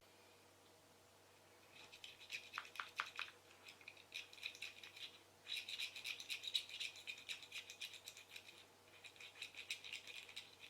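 Fast rattling clicks in several bursts with short pauses between them, starting about two seconds in.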